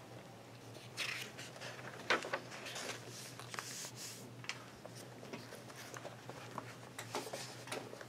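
Scattered rustling and small knocks, with one sharper knock about two seconds in, over a low steady hum of room tone.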